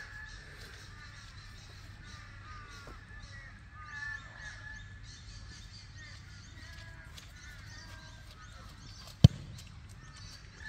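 Birds calling repeatedly in the background. About nine seconds in comes a single sharp thud: a boot kicking an Australian rules football in a drop punt at goal.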